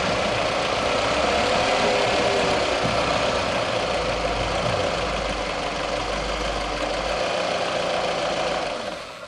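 Toyota RAV4's 1AZ-FE 2.0-litre four-cylinder petrol engine running warm, heard close-up from inside the engine bay. The owner is chasing a knock that comes on when the engine pulls under load. The sound falls away steeply near the end.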